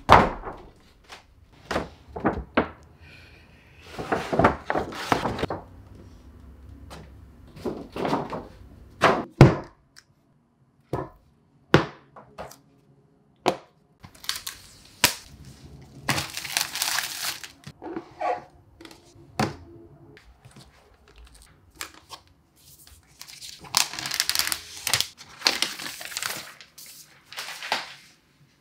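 Cardboard packaging of an iPad Pro and Apple Pencil handled on a wooden desk: many short thunks, taps and clicks as boxes are knocked and set down. Three longer stretches of cardboard sliding and rustling come at about four seconds, about sixteen seconds and near the end.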